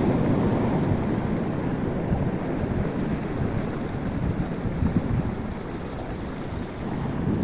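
Heavy storm surf breaking and washing up the beach, with wind buffeting the microphone. The surf eases slightly late on, then builds again just before the end.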